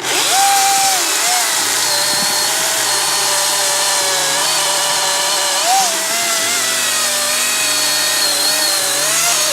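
DeWalt Flexvolt 60V brushless battery chainsaw (DCCS670X1) starting abruptly at full speed and running steadily while cutting through a log, its motor pitch dipping and recovering a little as the chain bites.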